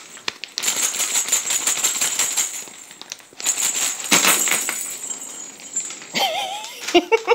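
Wrapping paper and crinkly plastic packaging rustling and crackling as a Christmas stocking is torn open, in two long spells, with a brief wavering call near the end.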